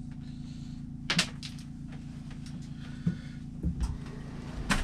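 Several sharp knocks and clunks, the loudest about a second in and a cluster near the end, over a steady low hum.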